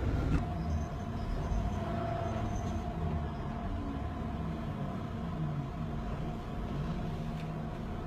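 Steady low background rumble with a faint hum.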